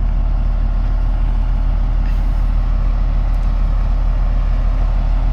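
Steady low drone of a vehicle heard from inside the cab while driving: engine and road noise at a cruising speed of about 80 to 90 km/h.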